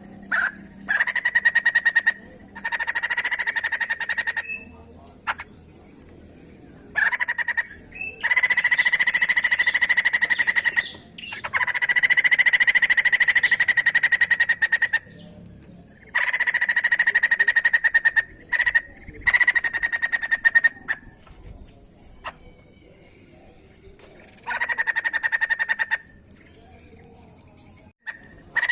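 White-crested laughingthrush calling in repeated bursts of rapid, rattling chatter, each lasting a second or two, with short pauses between them.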